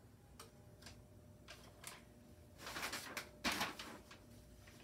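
Sheets of paper being handled and laid over a mask on a heat press: a few light taps and rustles at first, then two louder rustles a little past the middle.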